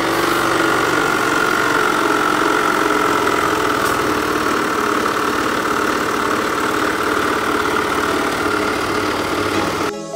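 Kymco Many 110 scooter engine running steadily, with a steady high-pitched whine over it: the noise of a damaged main crankshaft bearing. It gives way to music at the very end.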